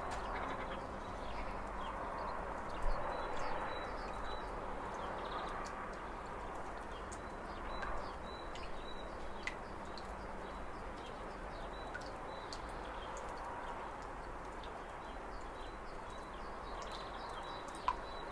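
Lakeside outdoor ambience: small birds chirping briefly now and then over a steady wash of background noise and a low rumble.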